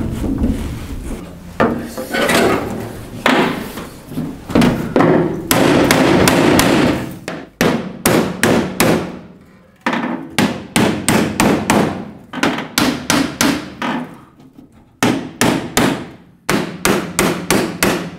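Rusted steel cab door of a Citroën U23 truck being knocked off hinges that are rusted into place. For the first several seconds the door rattles and scrapes as it is wrenched, then come runs of quick hammer blows on metal, about three a second, in several bursts.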